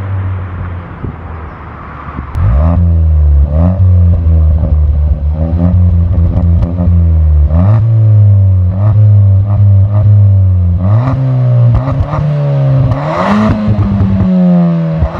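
Ford Fiesta ST's 1.6-litre turbocharged four-cylinder engine through a Mountune cat-back exhaust, free-revved while standing still: after a steady drone for the first two seconds, a run of quick revs, each rising and falling back, about one a second.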